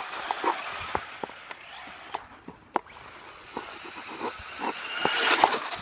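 Remote-control truck running on a driveway: a high electric-motor whine and tyre hiss with scattered small clicks, swelling louder near the end.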